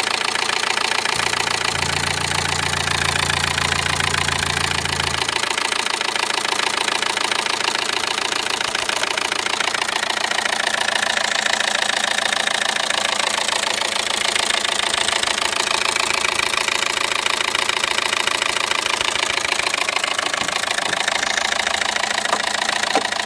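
Car engine idling with a fast, even clattering rattle from the timing side: the sign of a stretched timing chain slapping, with its hydraulic tensioner extended far out to take up the slack.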